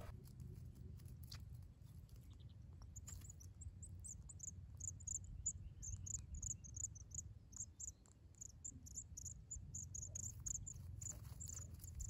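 Nestlings' begging calls: rapid, very high, thin cheeps, several a second, starting about three seconds in as a parent comes to the nest to feed them. A low steady rumble runs underneath.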